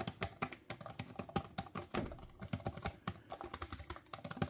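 Keyboard of an HP OmniBook Ultra Flip laptop being typed on quickly with both hands: a rapid, uneven run of light key clicks.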